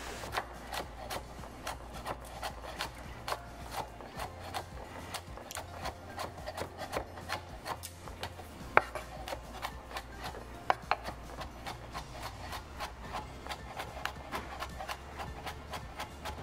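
Kitchen utensils scraping and rubbing during food preparation, with many small irregular knocks, over a steady low hum.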